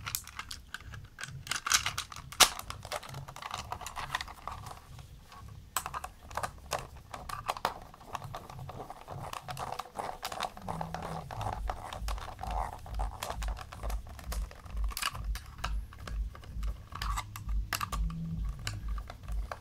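Small plastic parts of a toy vacuum's cyclone assembly being handled, pressed together and prodded with a small screwdriver: a run of light plastic clicks, taps and scrapes. In the second half a low soft thump repeats about twice a second underneath.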